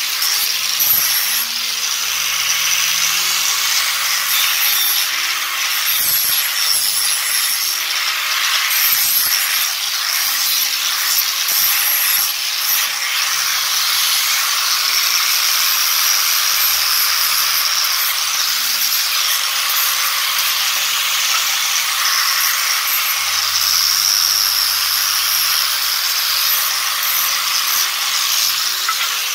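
Angle grinder with a sanding disc running steadily against a wooden stick, grinding its corners round. It gives a loud, even hiss with a high whine over it.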